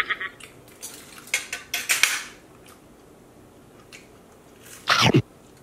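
Knife and fork clinking and scraping on a plate while a steak is cut, in a quick run of sharp clicks over the first two seconds or so. One short, louder sound comes about five seconds in.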